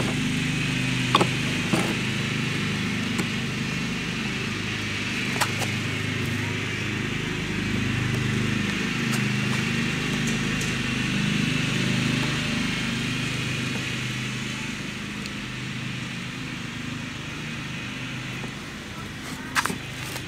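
A small engine running steadily, its note wavering slightly and easing off a little in the last few seconds, with a few clicks and knocks near the end.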